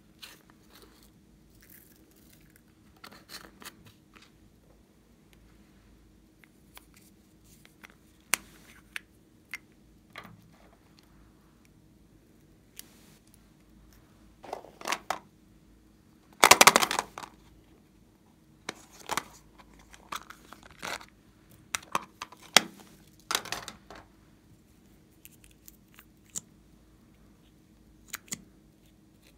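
Plastic makeup containers being handled and opened: scattered clicks, taps and scrapes. The loudest is a dense scrape about a second long, just past the halfway point.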